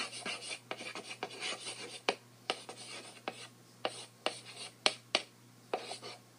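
Chalk writing on a blackboard: short scratchy strokes broken by sharp taps of the chalk against the board, coming quickly and irregularly.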